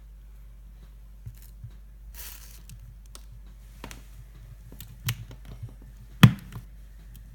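Cutting pliers squeezing and clicking on an old dishwasher grommet, a rubber seal with a steel spring ring inside that resists being cut. There are scattered small clicks, a short scrape about two seconds in, and one loud sharp snap about six seconds in.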